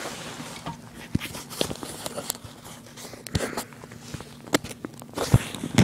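Hand rummaging through a fabric bag: rustling cloth with scattered small clicks and knocks of objects inside.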